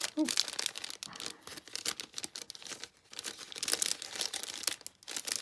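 Clear plastic packaging sleeve crinkling and crackling as a sheet of red rubber cling stamps is handled and worked out of it. The rustling comes in irregular spells, with brief lulls about three and five seconds in.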